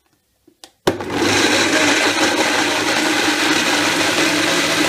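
Countertop blender switched on about a second in and running steadily, loud, grinding chopped raw green mango, coconut and red chillies into a thick paste with no water added.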